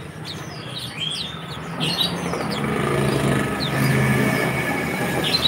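Many small caged songbirds chirping, short quick high notes overlapping, over a steady low hum.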